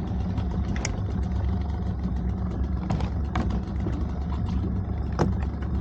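Small boat's motor running at a steady speed, with a few short ticks over it.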